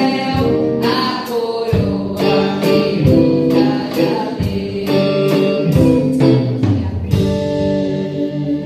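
Gospel hymn sung to guitar accompaniment with a steady beat.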